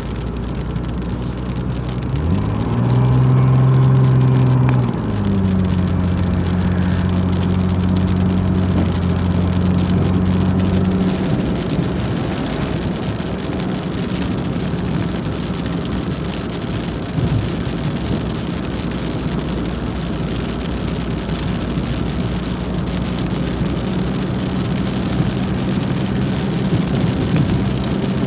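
Car engine and tyre noise on a wet road, heard from inside the car's cabin, with rain hitting the car. About two seconds in the engine note climbs and holds, then near five seconds in it steps down to a lower steady note.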